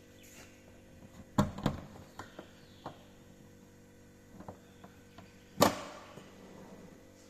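A series of sharp knocks and clicks of things being handled, over a faint steady hum: two loud knocks about a second and a half in, lighter clicks after them, and the loudest knock a little past halfway, with a short ring after it.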